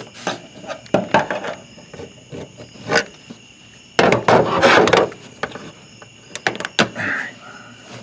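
Hands working a plastic electrical plug off the fuel pump sending unit: scattered small clicks and knocks, with one longer, louder rustling scrape about four seconds in.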